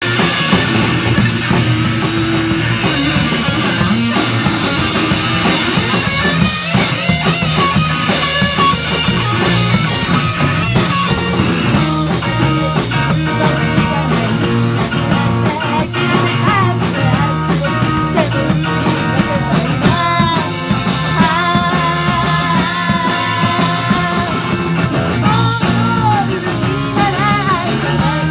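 Live rock band playing a song: electric guitar, drum kit with a steady beat, and a sung lead vocal.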